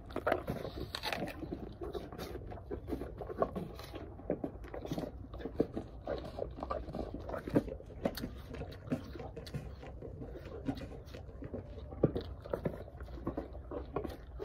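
Horse chewing a juicy apple close up: irregular wet crunching, several crunches a second.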